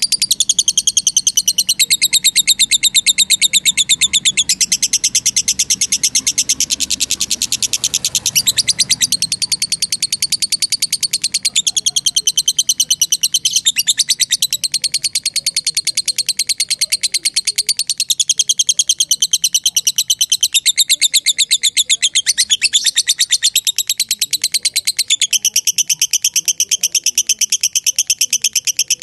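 Lovebird giving a long, unbroken 'ngekek' chatter: a fast, high-pitched trill of rapidly repeated notes that shifts in pitch every few seconds. This is the long chatter that lovebird keepers prize in a bird in full song.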